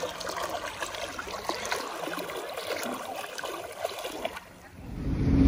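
Swim fins kicking at the surface of shallow sea water, a steady run of small splashes and trickles. Near the end the splashing stops and a motor's low drone comes in and grows louder.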